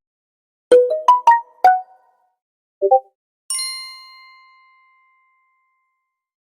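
Three phone notification tones in turn: a quick run of four short plucked notes, a brief two-note blip, then a single bright chime that rings out for about two seconds.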